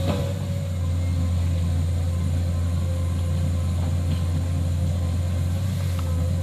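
Komatsu hydraulic excavator's diesel engine running hard and steadily under load as the machine works through thick mud, with a steady whine above the engine note. A short knock right at the start.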